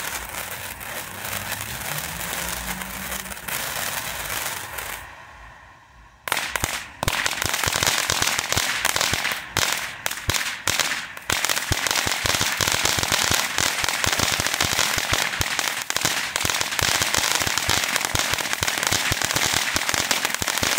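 Phantom Fireworks Core Reactor fountain burning with a steady hiss that fades about five seconds in. After a brief lull, its silver crackle stars start a dense, rapid crackling suddenly about six seconds in, and it keeps on.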